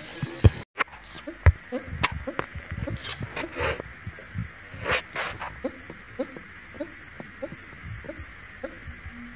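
Young pigeons making short, soft repeated calls, mixed with scattered knocks and clicks; a thin steady high tone runs under them.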